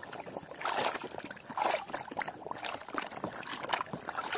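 Muddy water sloshing and splashing in a plastic basin as a hand scrubs a toy vehicle under the surface, in repeated swishing strokes about once a second.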